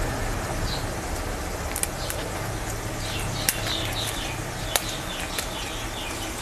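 Chopped onion frying in hot mustard oil in a kadai: a steady sizzle with scattered sharp crackles and pops, over a low steady hum.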